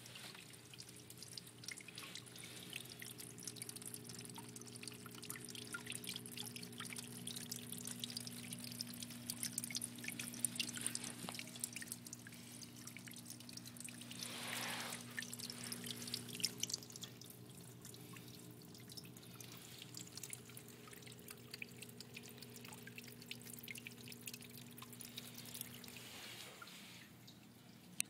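Water dripping and trickling in a rainforest vivarium's rain system: a faint patter of many small, irregular drips, over a steady low hum that stops near the end.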